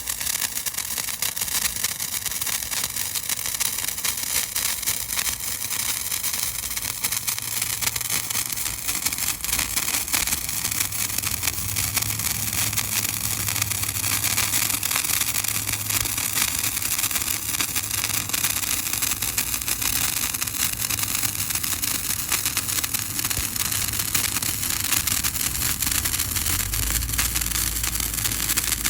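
A 14-inch crackling sparkler burning: a dense, continuous stream of rapid, loud crackles.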